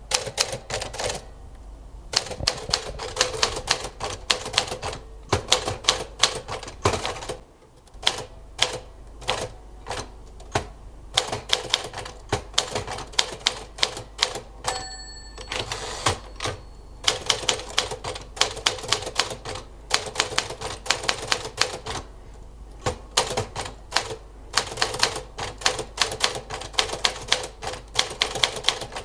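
1950s Smith-Corona manual typewriter being typed on: rapid, uneven key strikes clacking, with a short pause about a quarter of the way in and one brief ring about halfway through.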